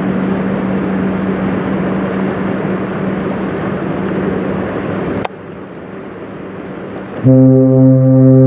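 Passing Great Lakes bulk freighter's engine droning with a steady low hum over a noisy rush, which drops abruptly to a quieter hiss about five seconds in. Near the end the ship's horn starts a long, loud, steady blast.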